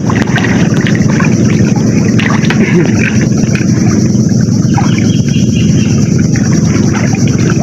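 Steady rush of fast-flowing floodwater swirling around people wading chest-deep through it, with scattered small splashes.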